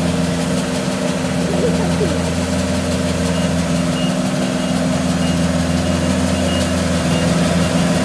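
Diesel engine of a Kubota DC70 combine harvester running steadily with a constant hum. From about three seconds in, a faint high beep repeats several times.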